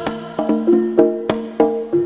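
Javanese jaranan pegon music in a percussion passage: quick, uneven percussion strokes with short pitched notes between them, and no sustained melody line.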